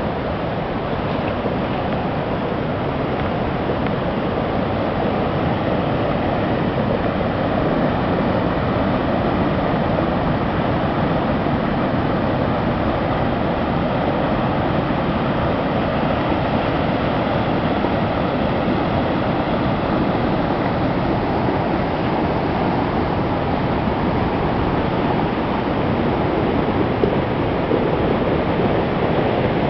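Steady, loud rushing roar of a large waterfall's white water.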